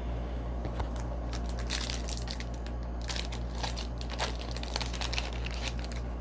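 Crinkling and crackling of foil trading-card pack wrappers being handled and gathered up, a busy run of small crackles over a steady low hum.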